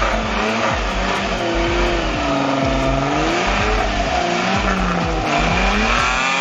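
Modified off-road 4x4's engine revving, its pitch rising and falling repeatedly as the vehicle churns through deep mud.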